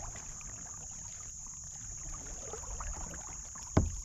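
Kayak paddling on a calm river: faint paddle drips and small splashes over a steady high insect drone. A single sharp knock near the end is the loudest sound.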